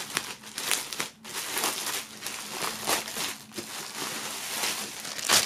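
Thin clear plastic film crinkling and crackling as it is torn open by hand and pulled off a folded shirt, in irregular sharp crackles, the loudest near the end.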